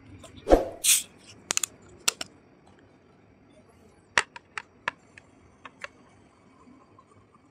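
A soft-drink bottle and a drinking glass being handled: a thud and a short hiss about half a second in, then scattered light clicks and taps from the glass and bottle.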